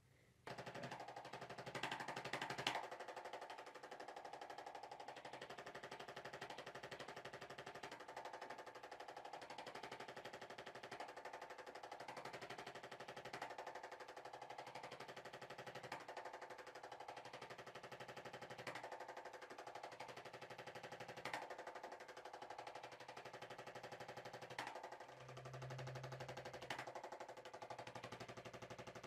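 Faint, rapid mechanical hammering from a small motorised device, starting suddenly about half a second in and then running steadily.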